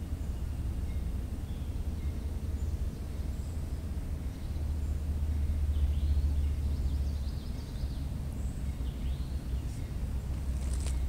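Low, steady rumble of a distant approaching freight train led by a GE ES40DC diesel locomotive, swelling a little about six seconds in. Birds chirp now and then.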